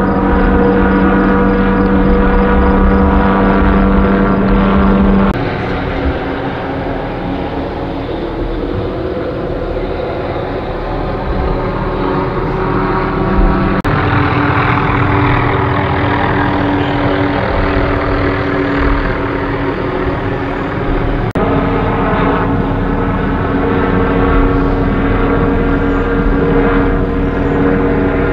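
Police helicopter overhead, its rotor and engine giving a steady drone whose pitch shifts a few times as it circles.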